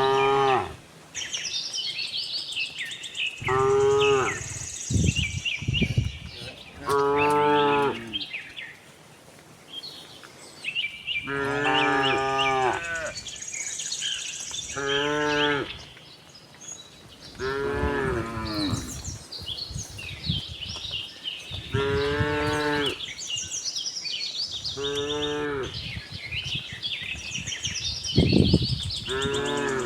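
Cows mooing over and over, about nine long, deep calls rich in overtones, every few seconds, some overlapping, with birds chirping high in the background.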